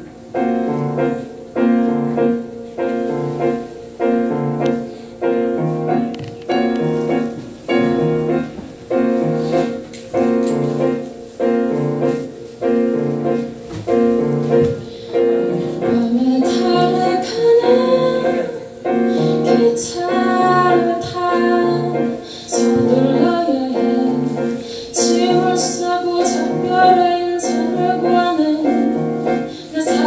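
Solo live performance on a Kurzweil stage keyboard: piano chords struck about once a second in a steady pattern. About halfway through, a woman's singing voice joins over the chords.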